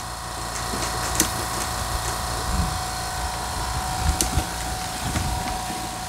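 Pipe-flushing rig running with a steady whine, while air and water are forced through a heating pipe. The pipe gives irregular sharp clicks and knocks and a few short low surges as slugs of air and water push through to scour out rust and sludge.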